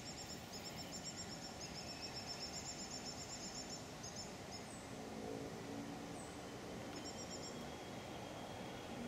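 Evening riverside bush ambience: a steady background hush with a very high, rapid pulsing trill for about the first five seconds and again briefly later, a few short high falling chirps, and a faint low droning tone coming in about five seconds in.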